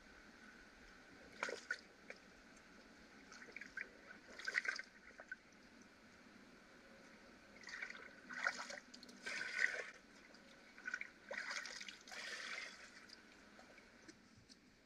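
Faint water gurgling and sloshing in irregular bursts as a water container is dipped into a shallow stream pool and filled.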